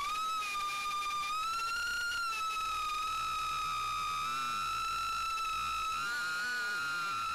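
High-pitched whine of a Mobula6 tiny whoop's brushless motors and propellers in flight, the pitch wavering slightly up and down as the throttle changes.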